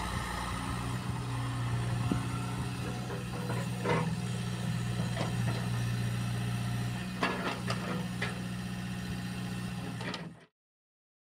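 Mecalac 8MCR midi excavator's diesel engine running at a steady speed while the machine slews its upper structure and works its boom and arm, with a few sharp knocks along the way. The sound cuts off abruptly about ten seconds in.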